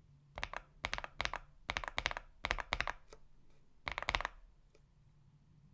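Typing on an AULA F99 mechanical keyboard fitted with AKKO Rosewood switches: keys pressed in quick bursts of clacks, stopping about four seconds in.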